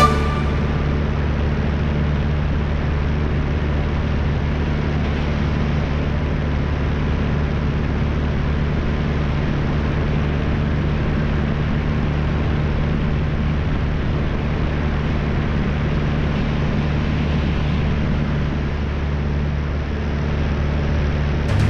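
De Havilland Tiger Moth biplane's engine and propeller droning steadily in cruise flight, with a constant rush of air, dipping slightly near the end.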